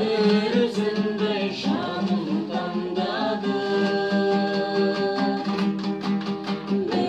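Two dombras, the Kazakh two-string lute, strummed in accompaniment while a man and women sing together.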